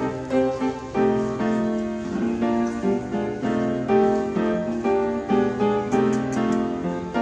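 Background piano music: a gentle melody played over chords.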